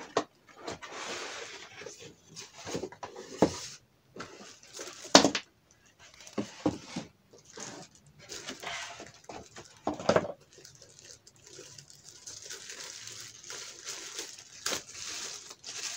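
Unboxing handling noise: a cardboard box and moulded pulp packing being pulled apart and plastic wrap rustling around a boombox, with several sharp knocks as pieces are set down on the table, the loudest about five seconds in.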